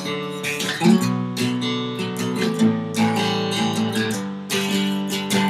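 Acoustic guitar strummed in chords, an instrumental break with no singing.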